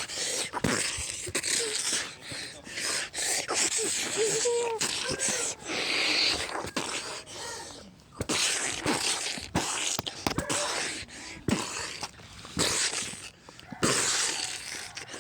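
Short non-word vocal noises, like sound effects made with the mouth, mixed with many scattered clicks and knocks.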